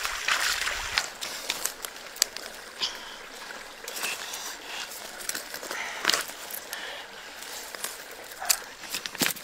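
Feet splashing through a shallow stream for about the first second. Then a low steady hiss with scattered small clicks and rustles, as a mud crab is handled on pebbles and dry leaves.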